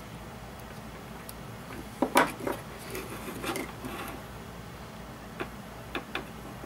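Handling noises on a wooden workbench: a 9-volt battery's snap connector being pressed onto the battery terminals, then the battery and a small circuit board set down, giving scattered sharp clicks and knocks. The loudest clicks come about two seconds in, with a few lighter ones later.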